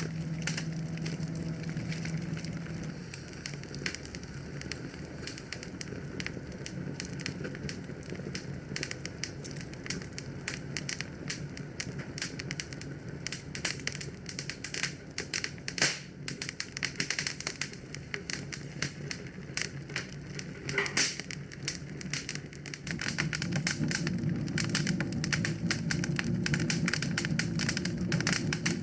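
Wood fire crackling in a fireplace, with many irregular sharp pops and snaps. Under it a low steady rumble fades about three seconds in and comes back near the end.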